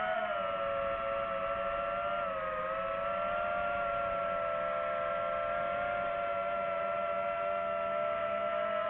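Drone's motors and propellers whining steadily in flight, the pitch dipping slightly about two seconds in and then holding.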